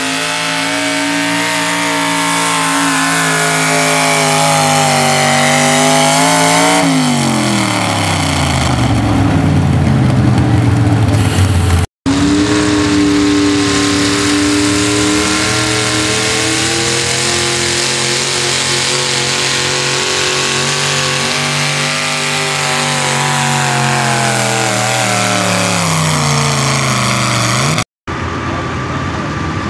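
Modified mini truck engines running hard at high revs while pulling a weight-transfer sled. About seven seconds in, the engine pitch falls steadily as the truck slows under the sled's load. After a cut, a second truck runs at high, wavering revs that sag near the end, then a quieter engine takes over after another cut.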